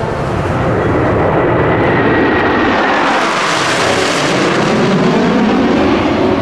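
Blue Angels F/A-18 Super Hornet jets flying past in formation: a loud jet roar, with a whining tone that falls in pitch about three seconds in as the formation passes.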